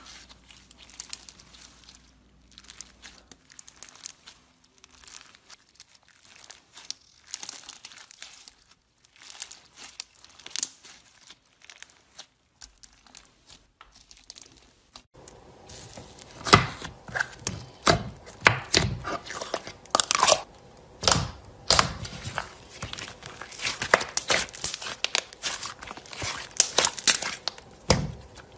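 Hands squeezing and pressing slime packed with water beads, making rapid little crackles and pops. The crackling is sparse and soft at first, then turns louder and denser about halfway through.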